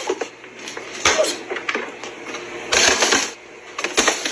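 Clattering and clinking of an ice cube tray and freezer containers being handled, in three short bursts; the longest and loudest comes about halfway through.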